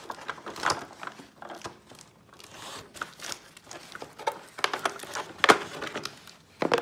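Crinkling, rustling and clicking from a Paw Patrol fire truck toy's box and plastic packaging as the truck is handled in its insert, in irregular bits with a sharp click about five and a half seconds in.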